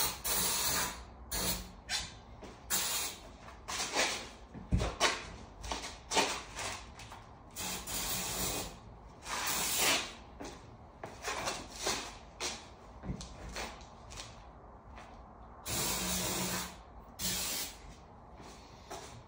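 Aerosol can of starting fluid spraying in many short hissing bursts, some about a second long, as it is sprayed around the unseated bead of a tire before lighting it to re-seat the bead. A single dull thump about five seconds in.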